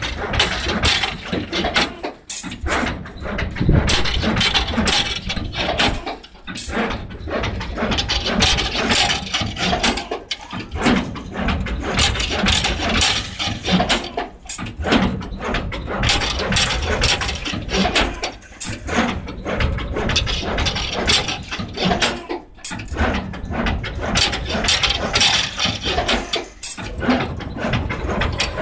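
Automatic rebar stirrup bending machine running: steady motor noise with dense metallic clattering as steel bar is fed and bent. The work comes in a repeating cycle, with a short lull about every four seconds.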